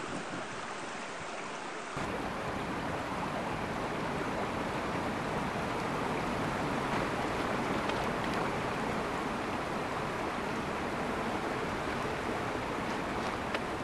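Steady rushing of a woodland stream flowing past a footbridge. About two seconds in, the sound abruptly grows fuller and a little louder, with more low rumble.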